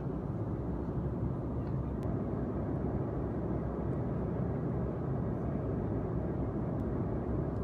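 Steady cabin noise of an Embraer E195 airliner in flight: an even, low rush of airflow and engine drone heard from a passenger seat.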